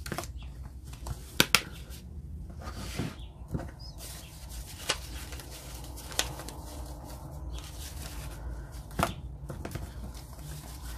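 Desk handling sounds: rustling with scattered light knocks and a sharp double click about a second and a half in, as a cash-envelope binder is lifted away and papers and envelopes are rummaged through.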